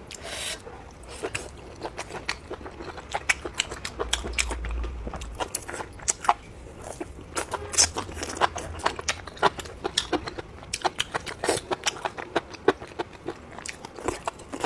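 Close-up chewing and biting of duck feet, with many irregular sharp crunchy clicks of teeth on bone and skin.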